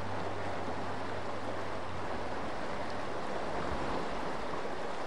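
Fast-flowing, muddy river floodwater rushing past in a steady, even rush.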